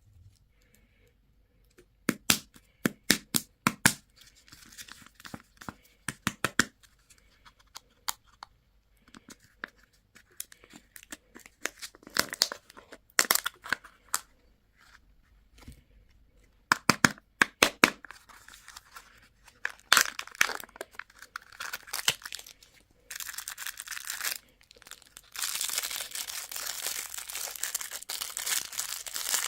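Plastic candy and toy wrappers being crinkled and torn open: scattered sharp crackles and snaps for most of the time, turning into steady, continuous crinkling near the end.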